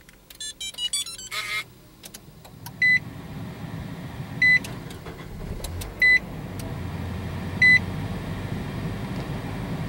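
A run of clicks, then the Nissan NV200's 2.0-litre four-cylinder gasoline engine starts quickly on remote start about two and a half seconds in and idles steadily from cold. Four short high beeps sound about one and a half seconds apart over the idle.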